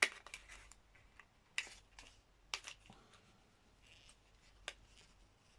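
Faint handling of a needle holder: a few scattered small clicks and rustles as one needle is worked out of its packet.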